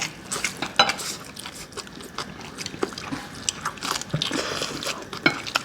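People chewing and biting into mouthfuls of instant ramen noodles, with scattered light clicks and small eating noises.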